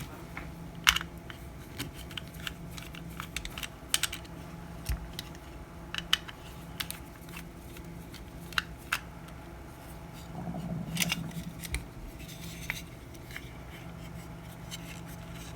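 Scattered small plastic clicks, taps and scrapes as the plastic housing of a battery clock movement is worked at and pried open by hand, over a faint steady low hum.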